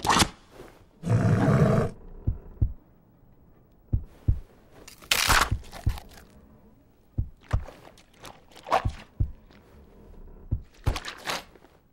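Sound effects: a string of irregular dull thumps and knocks mixed with short scraping, crunching noises, the loudest a longer rasping burst about a second in.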